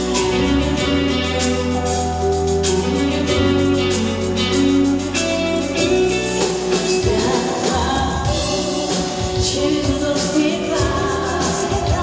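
Live pop ballad performance: a band playing with sustained singing over a steady bass line and beat.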